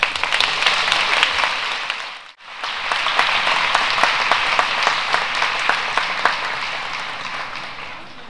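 Audience applauding, a dense clapping that cuts out for a moment about two seconds in, then resumes and fades away near the end.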